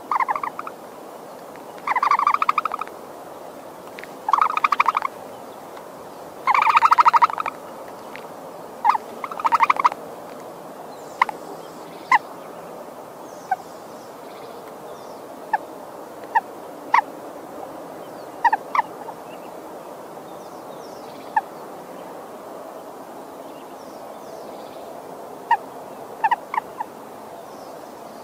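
Bird calls: four loud rattling, gobble-like calls in the first ten seconds, the longest about a second, then a scatter of short single chirps over a steady background hiss.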